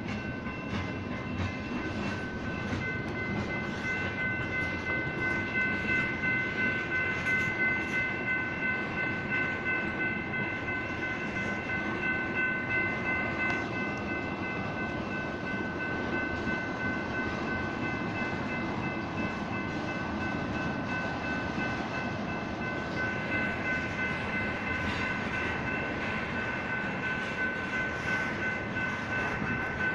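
A freight train of tank cars rolling past at a grade crossing, the steel wheels rumbling and clacking on the rails. Over it the crossing's electronic warning bells ring steadily and without a break.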